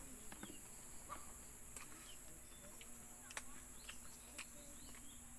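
Faint, steady high-pitched drone of insects, with a few short bird chirps and scattered small clicks of hand-eating: chewing and fingers scooping rice on a banana leaf.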